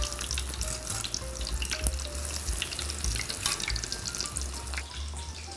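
Panko-breaded mahi-mahi fillets deep-frying in hot oil, a steady sizzle full of fine crackling and spattering.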